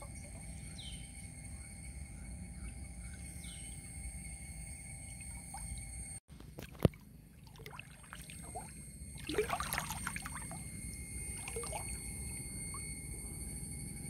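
Water splashing and trickling over a steady outdoor background, with a louder splash about nine to ten seconds in and a single sharp click a few seconds before it.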